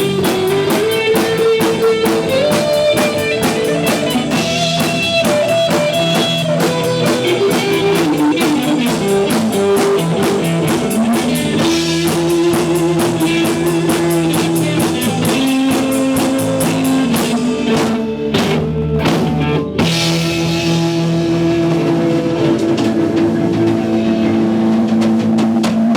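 Rock band playing an instrumental passage: guitar holding long sustained notes over a drum kit with a fast, steady cymbal beat. About 18 seconds in, the band breaks to a few separate accented hits, then the full groove returns.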